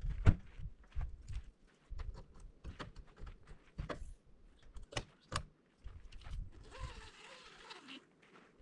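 Irregular crunches and sharp knocks, with uneven gusts of low rumble like wind on the microphone that stop about seven seconds in; just after, a short cry falls in pitch.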